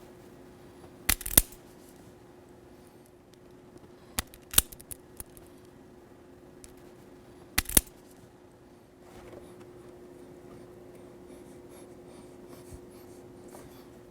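Wire cutters or strippers snipping three times, each a quick double snap, cutting insulation to bare the ends of small electrical wires. Faint rustling of handling follows in the second half.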